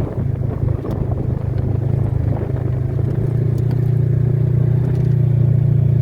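An engine running steadily with a low drone that grows a little louder and firmer over the last few seconds.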